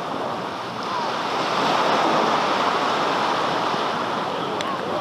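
Ocean surf breaking and washing up the beach, swelling to its loudest about two seconds in, then easing off.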